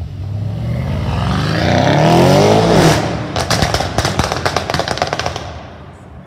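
A supercar accelerating hard, its engine note rising for about two seconds, then a rapid string of exhaust pops and crackles on the overrun, fading as it drives away.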